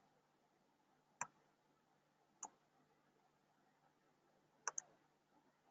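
Near silence broken by four faint clicks on a computer: single clicks about a second and two and a half seconds in, then a quick pair near the end.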